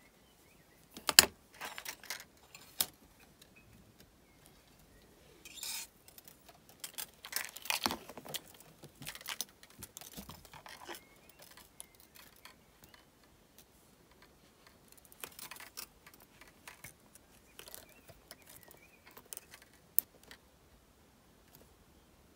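Flush cutters snip a thin copper wire tail with one sharp click about a second in. After that, copper wire is handled and bent by hand, with scattered light clicks, metallic clinks and rustles, and another sharp click near the end.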